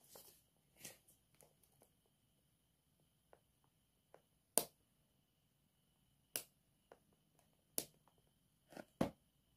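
Scattered small ticks and sharp clicks from alligator clips and wires being handled and clipped on and off a small bulb. The loudest clicks fall in the second half, about a second and a half apart, the last two close together.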